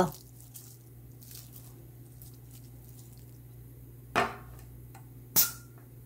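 Quiet room tone with a faint steady hum, broken by two short clicks from plastic food containers handled on a counter, about four seconds in and again a second later; the second click is the sharper.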